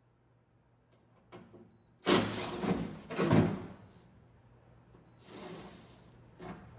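Cordless drill/driver running in short bursts against the steel door of a 1975 International Scout II, backing out the window regulator bolts. The longest and loudest burst comes about two seconds in, and a weaker one follows near the end.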